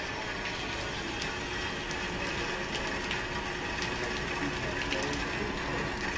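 Air and water spitting from a Filtrine PCP-3000 chiller's open air vents as its water loop is filled: a steady hiss with scattered small pops and ticks, the sign of air still being purged from the system.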